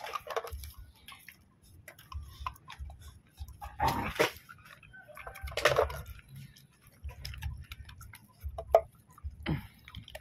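Dogs close by eating dry kibble and snuffling at the ground, with light ticking clicks and a few short noisy snorts, the loudest about four and six seconds in.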